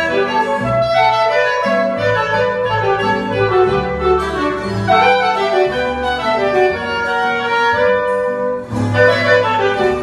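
Live quartet of saxophone, clarinet, upright bass and a small plucked string instrument playing a pasillo, a Colombian waltz-like piece. The clarinet and saxophone carry the melody over plucked bass notes and strummed chords.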